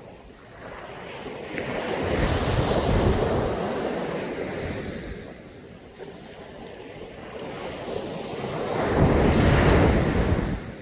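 Sea waves breaking on a beach, two in turn: each rushes up to a peak and washes back out over a few seconds, the second dropping away suddenly near the end.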